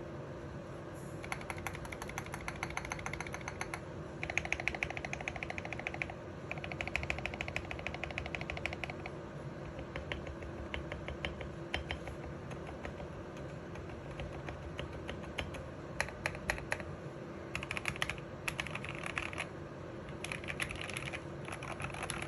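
Typing on an RK61 Pro mechanical keyboard with Gateron Red linear switches, dye-sub PBT keycaps and an aluminium case. Fast runs of keystrokes a few seconds long come in bursts, with sparser single presses between them.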